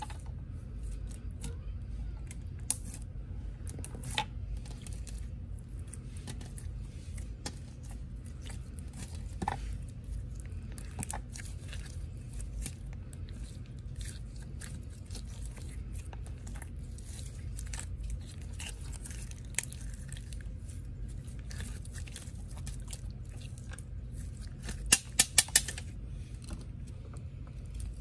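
Clear, jelly-like glossy slime with small beads mixed in being stretched and squished by hand, giving scattered sticky clicks and crackles, with a quick run of louder pops near the end.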